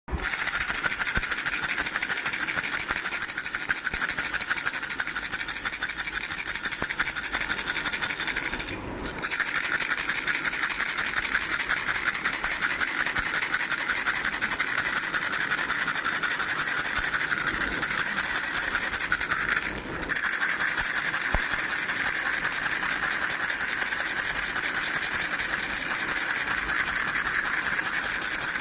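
Baby rattle shaken fast and steadily, a dense continuous rattling that breaks off for a moment twice, about a third and about two thirds of the way through.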